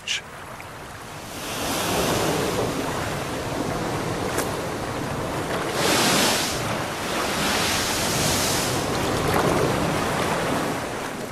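Ocean surf breaking and washing over shoreline rocks, several waves surging in turn, the loudest about six seconds in.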